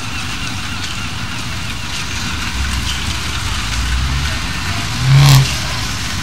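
A vehicle horn gives one short, loud honk about five seconds in, over steady street noise and the low rumble of slow-moving vehicles.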